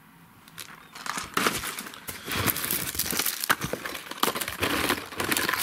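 Plastic lure packaging crinkling as cellophane-bagged wobbler boxes are handled and shuffled, the crackling starting about a second in and going on densely and irregularly.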